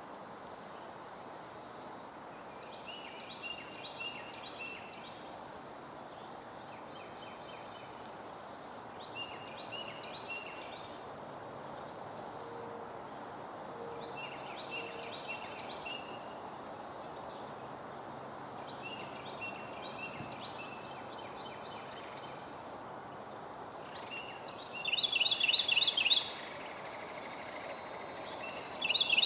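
Insects trilling steadily and high-pitched, with a short chirping call repeating every few seconds that turns much louder twice near the end.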